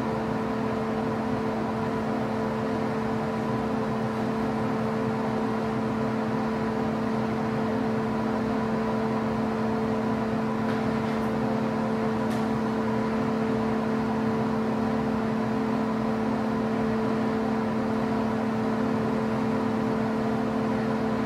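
A steady machine hum at a constant pitch over a hiss, unchanging throughout.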